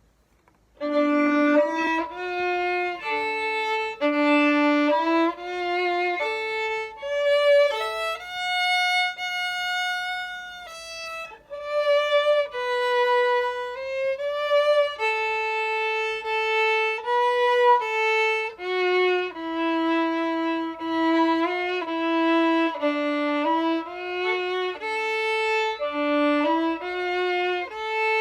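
Violin playing a melody one note at a time, starting about a second in.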